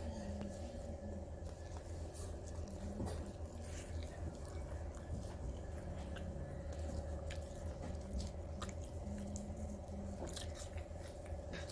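A person chewing and eating soft flatbread with vegetable curry, with small wet mouth sounds and scattered clicks, over a steady hum.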